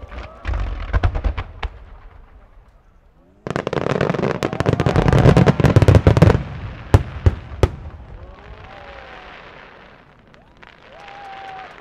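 Aerial fireworks shells bursting: a few quick cracks, then a dense barrage of booms and crackles about three seconds in, and three single loud bangs after it. A softer hiss with some crowd voices follows near the end.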